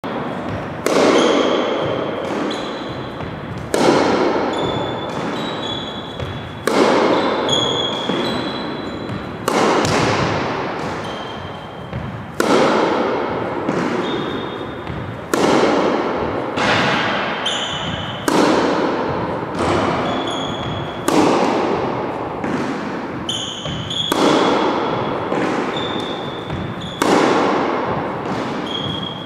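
Tennis balls struck with a racket at a steady pace of about one shot every three seconds, each hit a sharp pop that echoes for a second or two in a large gym hall. Short high squeaks of sneakers on the gym floor fall between the shots.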